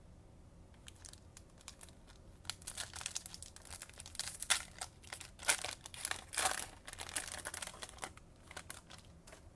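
Foil wrapper of a Bowman baseball card pack being torn open and crinkled by hand, an irregular crackling that starts about a second in and is loudest in the middle.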